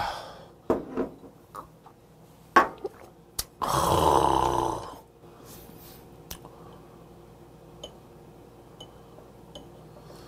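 A man lets out one loud, rasping, throaty breath after a shot of soju, a little over a second long, about three and a half seconds in. It comes after a few sharp clicks of glass and table, and is followed by faint chopstick ticks.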